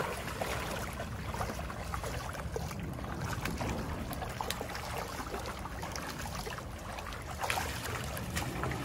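Shallow stream running steadily over stones, with small splashes and clicks as fish are worked out of a net in the water.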